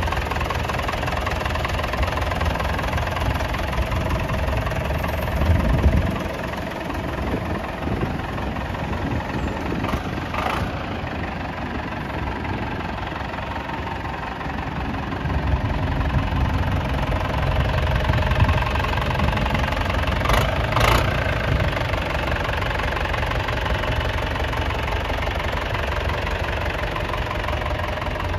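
John Deere 2420 tractor engine running with a knocking clatter, as the tractor is driven away and back: the engine grows somewhat fainter after about six seconds, then louder again from about halfway as it returns.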